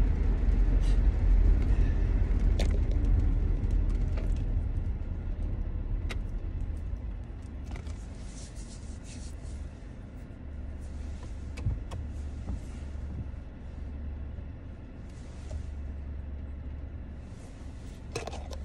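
Road noise and engine rumble heard inside a car's cabin, fading over the first several seconds as the car slows. What remains is a steady low idling hum, with a few faint ticks and a cluster of clicks near the end.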